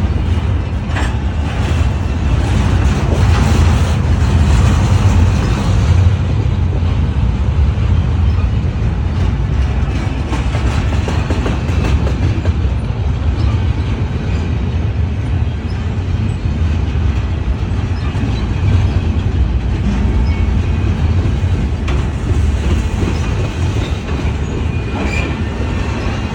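Freight cars of a long freight train rolling slowly past: a steady low rumble of wheels on rail, with scattered clicks as the wheels cross rail joints.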